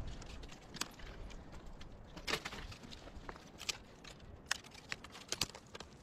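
Dry dead branches crackling and scraping over loose stones as firewood is gathered by hand, in irregular sharp clicks, thickest in the second half.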